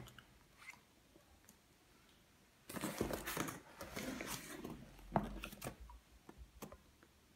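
Hands handling and turning a cardboard laptop box: quiet at first, then about four seconds of cardboard scraping and rubbing with light knocks, including one sharper click about five seconds in.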